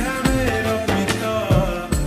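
Instrumental break in a Hindi devotional song: a gliding melody line over a steady beat.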